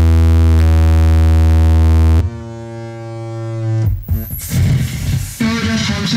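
Live electronic noise music from synthesizers and effects: a loud, buzzing low drone that cuts off suddenly about two seconds in, giving way to a quieter buzzing tone that swells, then harsh noise and a busier jumble of tones near the end.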